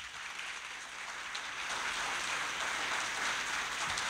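Audience applauding, the clapping growing steadily louder.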